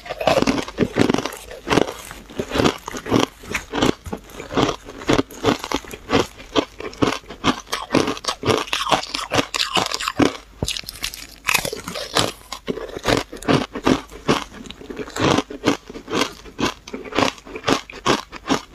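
Ice chunks coated in green powder being bitten and chewed, a fast, irregular run of crisp crunches, several a second.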